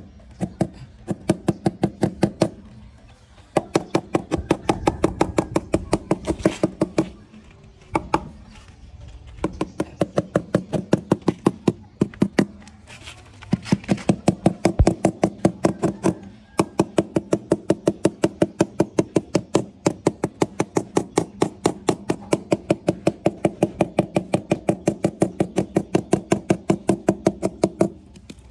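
Rapid repeated knocking, about five blows a second, in runs of several seconds broken by short pauses, each blow with a short ringing tone.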